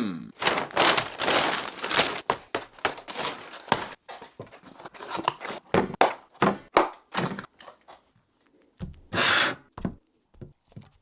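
Quick, irregular handling noises at close range: taps, knocks and rustling, with a longer rustle about nine seconds in. A short falling vocal sound opens it.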